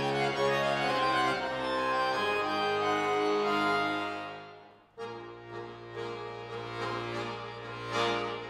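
Cooperfisa concert accordion playing sustained chords that die away to near silence a little over four seconds in. A softer new passage then begins over a held bass note, with an accented chord near the end.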